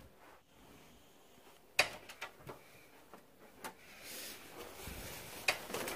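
Scattered sharp clicks and knocks of someone moving about and handling things, the loudest about two seconds in, then a soft fabric rustle as a jacket is picked up off the floor, with two more sharp clicks near the end.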